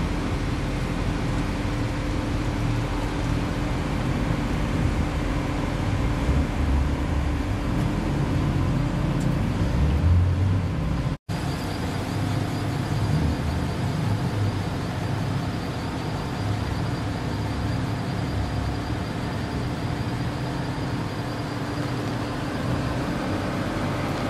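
Jaguar car engines running at low speed as the cars pull away slowly, a steady hum with a deeper rumble swelling near the middle. The sound drops out for an instant about eleven seconds in.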